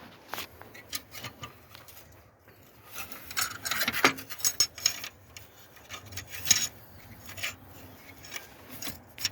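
Hand tools and metal parts clicking, clinking and scraping during repair work. There is a busy run of scrapes and knocks from about three to seven seconds in.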